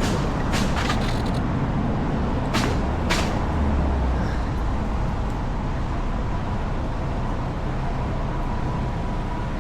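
Steady low rumble of road traffic and wind noise while riding, with a few sharp clicks or knocks in the first three seconds.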